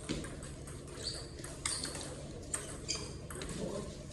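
Table tennis rally: the celluloid ball clicking sharply off bats and table, about every half second to a second.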